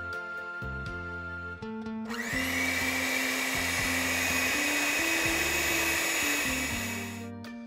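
Electric blender motor starting about two seconds in with a quick rising whine, then whirring steadily for about five seconds before stopping, over gentle background music.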